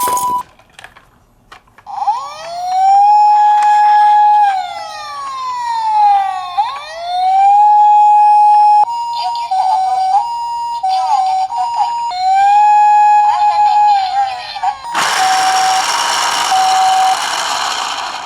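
Emergency-vehicle sirens: a police-style wail that rises, holds and falls, sounded three times, alternating with the hi-lo two-tone of a Japanese ambulance siren. Near the end comes about three seconds of loud hiss with a tone that switches on and off.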